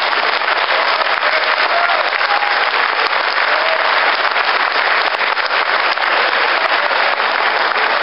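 Boxing crowd applauding and cheering, steady and loud, with a few voices calling out above it.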